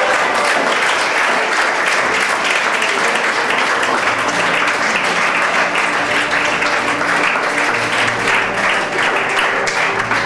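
Wedding guests applauding: a room full of steady hand clapping that thins out near the end, with music playing faintly underneath.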